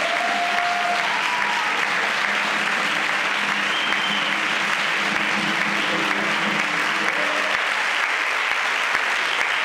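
Audience applauding steadily, with a few brief cheers rising above the clapping near the start and about four seconds in.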